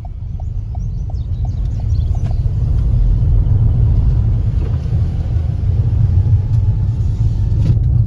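Car cabin rumble from the tyres on a dirt road, growing louder after about two seconds. For the first two seconds a turn indicator ticks about three times a second, then stops as the car straightens onto the road.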